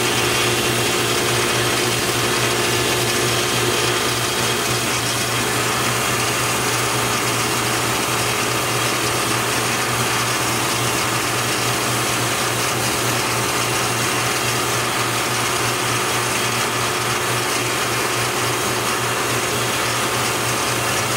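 Metal lathe running steadily, its spindle spinning a three-jaw chuck with a steady hum and whir, while a cutting tool turns down the end of a brass bar.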